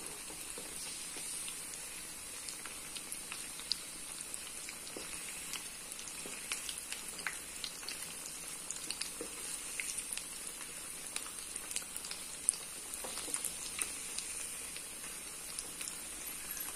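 Vermicelli-coated chicken cutlets deep-frying in hot oil: a steady sizzle with frequent small crackling pops.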